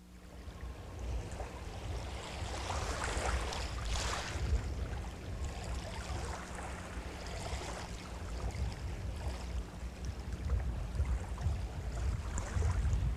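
Wind and waves on open water, with a steady low rumble underneath; the noise swells and eases unevenly.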